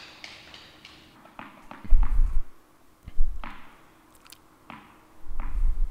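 Tennis ball on an indoor court: a series of sharp pops from the ball bouncing and being struck by rackets, broken by dull low thumps, the loudest about two seconds in and a longer one near the end.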